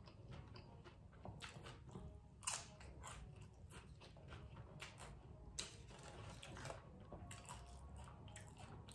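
A person chewing a mouthful of loaded shrimp nachos with Dorito chips, close to the microphone: soft irregular crunching and chewing, with a sharper crunch about two and a half seconds in and another a little before six seconds.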